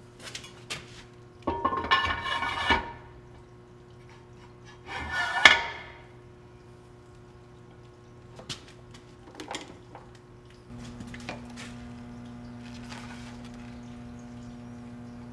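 A steel skyhook table attachment being slid into its yellow post and seated: two loud bursts of metal scraping and clanking a few seconds apart, then a few light taps. A steady hum comes in about two-thirds of the way through.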